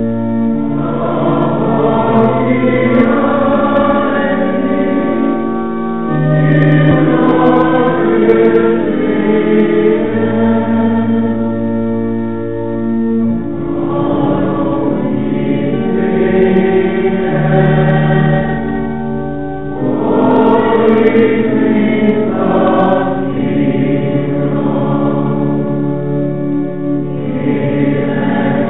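Many voices singing a slow hymn together, holding long notes, in phrases that pause briefly about every six or seven seconds.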